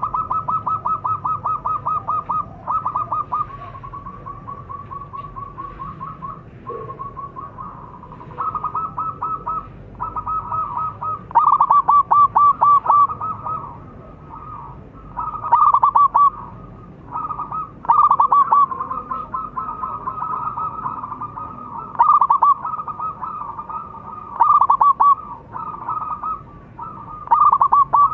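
Zebra dove (perkutut) singing: repeated runs of quick, short cooing notes, about seven a second, each run lasting one to two seconds. Louder runs come every few seconds.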